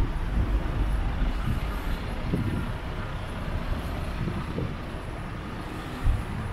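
Road traffic on a city street: cars and motor scooters passing close by, a steady low rumble, with a short thump about six seconds in.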